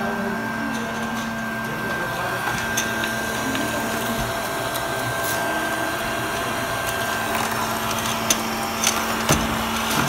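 Robot vacuum cleaner running across a hard stone floor: a steady motor hum with a thin high whine that fades out about seven seconds in. A few light knocks come near the end.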